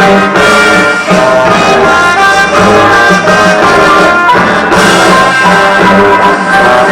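Loud brass-led music with quick-changing notes.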